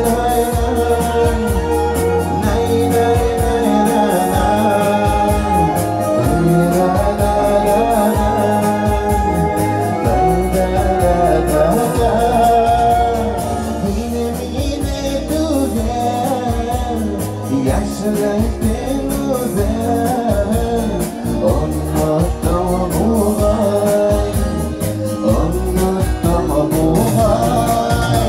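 A man singing a Bashkir retro song over instrumental backing music with a steady beat.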